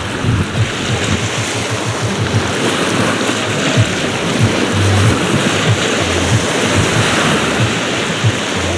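Small waves washing over a pebble shore, with wind buffeting the microphone in repeated low gusts.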